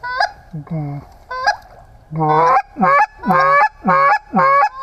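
Loud goose honking: a few spaced honks, then from about two seconds in a quick run of honks about one every half second, each breaking from a low note up to a high one.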